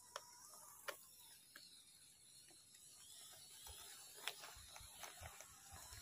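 Faint whirring and ticking of a modified WPL radio-controlled rock crawler's electric motor and geared drivetrain as it crawls over sand. A few sharp clicks are scattered through; the loudest comes about four seconds in.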